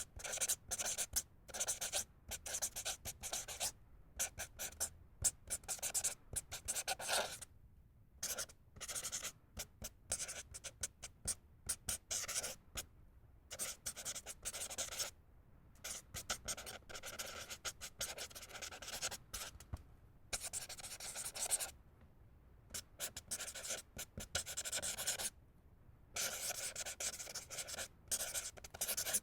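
Felt-tip permanent marker (Sharpie-type name pen) writing and drawing on paper: quick squeaky-scratchy strokes in short runs, with brief pauses as the tip lifts between words or lines.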